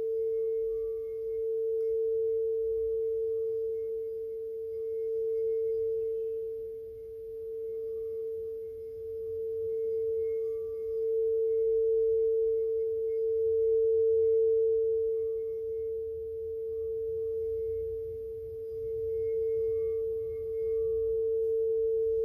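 8-inch frosted quartz crystal singing bowl tuned to A, sung by rubbing around its rim. It gives one steady pure tone that swells and fades every few seconds.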